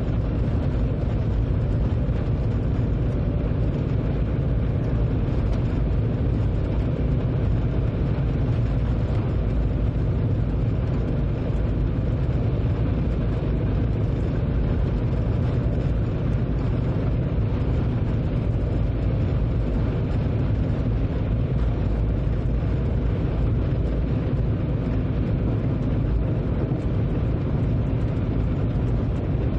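Train running at speed heard from inside the driver's cab: a steady low rumble that does not change.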